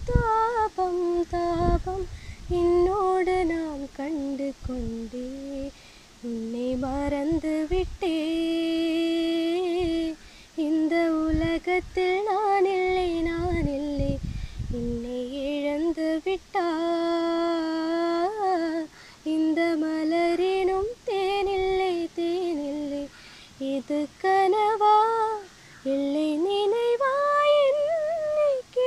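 A young woman singing a Tamil song unaccompanied, in melodic phrases with long held notes and short breaks for breath between them.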